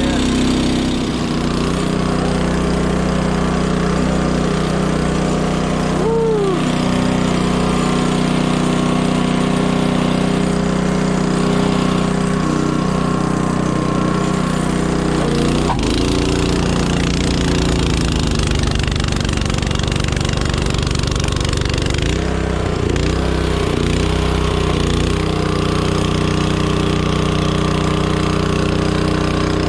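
Honda snowblower's four-stroke engine running steadily just after starting. Its pitch wavers briefly a few times.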